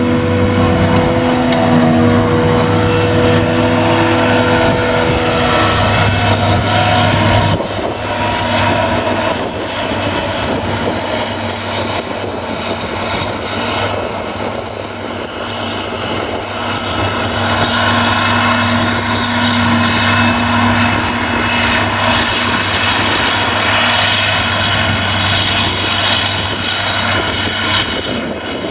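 Claas Jaguar self-propelled forage harvester working under load, chopping grass and blowing it up the spout into a trailer, with the engine of the tractor pulling the trailer alongside: a loud, steady engine and machinery drone with a whine. About a quarter of the way in the sound drops slightly and turns rougher and noisier.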